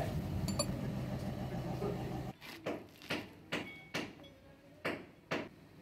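A steady low hum, then, after an abrupt drop, about six light knocks and clinks as cast gunmetal valve parts and nuts are picked up and set down.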